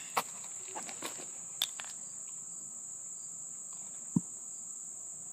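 A steady high-pitched whine, with a few light clicks and one soft knock about four seconds in.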